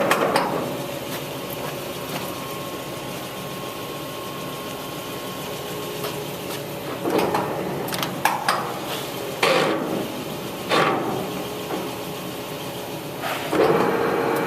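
Harrison metal lathe's spindle stopping, then several sharp metallic clunks as the headstock speed levers are shifted down to the 200 RPM range, and the lathe starting up and running again near the end.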